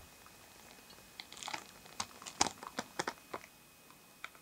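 Dry leaf litter crunching and crackling in short irregular bursts as a flock of wild turkeys scratches and walks through it. Most of the crackles come in a run between about one and three and a half seconds in, with one more near the end.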